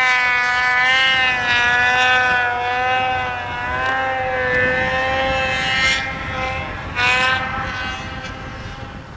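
Snowmobile engine running hard at high revs, a steady high-pitched drone that wavers slightly in pitch, swells briefly twice and fades near the end.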